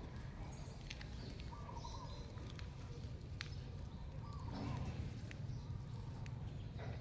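Outdoor ambience: a steady low rumble with a short call repeating about every three seconds, a few faint clicks, and a brief louder rustle about four and a half seconds in.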